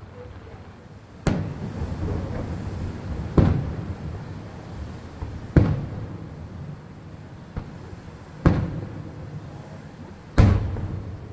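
Aerial firework shells bursting: five loud bangs about two seconds apart and a fainter one between them, each trailing off in a long echo.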